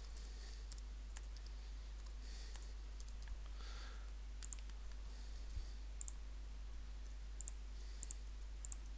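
Faint, scattered clicks of a computer mouse and keyboard keys as numbers are typed into spreadsheet cells, over a steady low hum.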